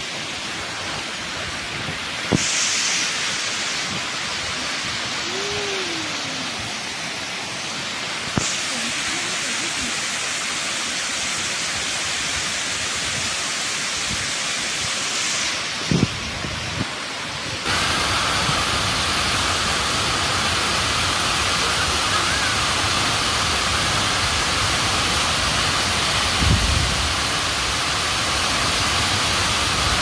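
Steady rush of a mountain waterfall, an even hiss of falling water. Its tone changes abruptly several times, becoming fuller and deeper a little past halfway, with a couple of brief low thumps.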